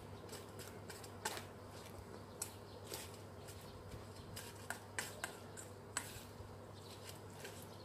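Chopsticks clicking and scraping against a stainless steel bowl as sliced salted figs are tossed in it: irregular light clicks, a few sharper ones, over a faint steady low hum.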